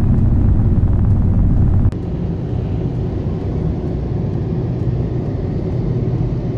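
Steady low road and wind rumble inside a car driving at highway speed. About two seconds in it drops suddenly to a slightly quieter rumble.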